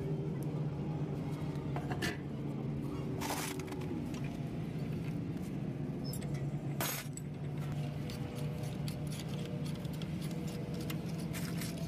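Steel tools and parts clinking and knocking against a truck wheel hub as it is worked on by hand: a few sharp clanks, then many light ticks near the end. A steady low hum runs underneath.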